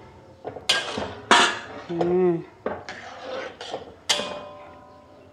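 Metal spatula knocking and scraping against an aluminium wok while stirring bamboo shoots in coconut milk: a series of sharp clinks, the one about four seconds in leaving the wok ringing briefly.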